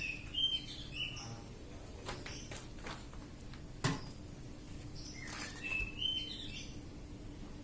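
Bird chirping in two short bursts of quick, high notes, one at the start and one about six seconds in, with a single sharp click near the middle over a faint steady hum.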